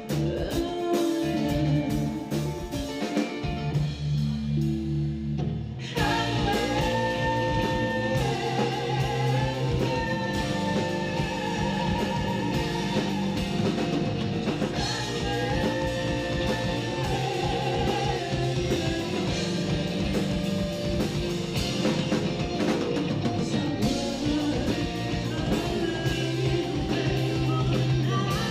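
Live rock band: a woman singing lead with vibrato over bass guitar, electric guitar and drum kit. A sparse passage of low bass notes gives way to the full band, which comes in suddenly about six seconds in.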